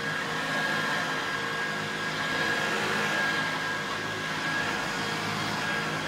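A 1980 Hoover Junior U2128 upright vacuum cleaner running while it is pushed over carpet: a steady motor hum and rush of air under a high-pitched whine.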